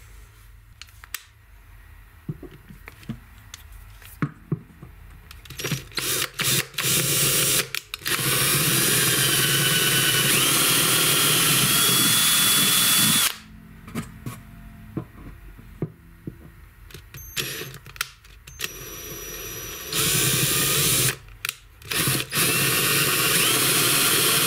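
Cordless drill boring bridge pin holes through an acoustic guitar's wooden bridge. After a few seconds of light handling clicks, the drill runs for about five seconds, stops, then runs again in short pulls before a longer run near the end. Its motor whine climbs in pitch in steps as it speeds up.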